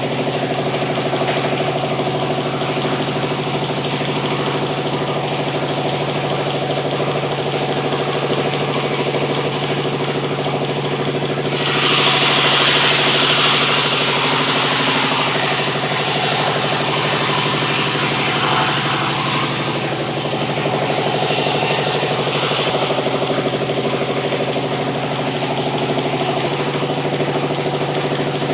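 Sawmill machinery running steadily with an engine-like hum. In the middle a louder hiss lasting about ten seconds joins in, the saw cutting through sengon wood.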